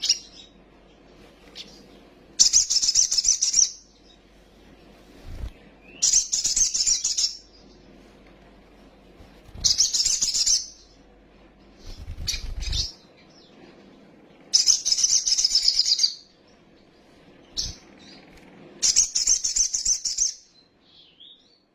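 Sunbird singing in repeated high-pitched bursts of rapid chattering song, each lasting a second or so, about every three to four seconds, over a faint low hum.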